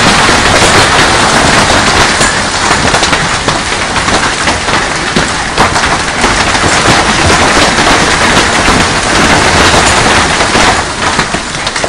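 Heavy hail pelting a pool, paving and yard in a loud, dense clatter of countless impacts, easing a little near the end.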